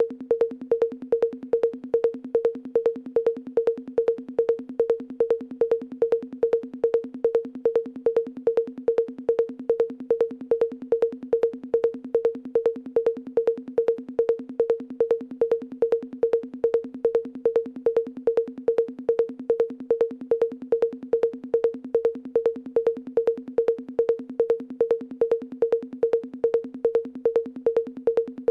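Electronic drum-machine percussion repeating one short, pitched knock at an even pace of about three hits a second. Each hit carries a lower second tone beneath it.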